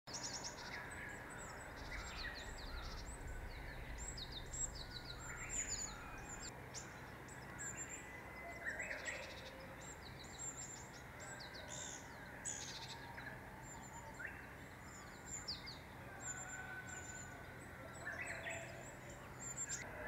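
Wild songbirds singing and calling, a Japanese tit among them: repeated high, quick downward-sweeping notes, with lower whistled notes in between.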